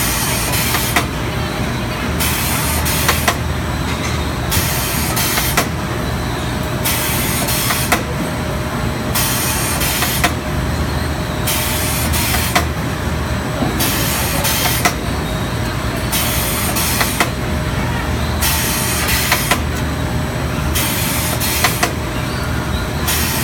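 STEEN ST 828 chicken drumstick deboning machine running through its cycle. A hiss comes on and off with a sharp click about every two seconds, over a steady machine hum and factory noise.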